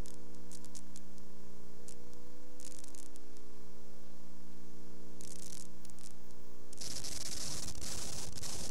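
Steady electrical hum with scattered faint crackles from VHS tape playback through a stretch of tracking distortion. About seven seconds in, a hiss of tape noise cuts in.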